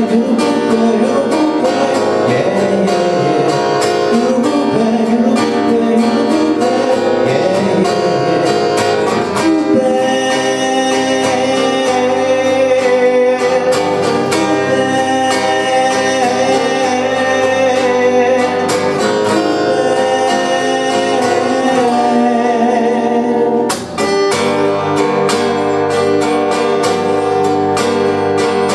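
Acoustic guitar music with a singing voice, a song played through, with a brief drop in the sound about three quarters of the way in.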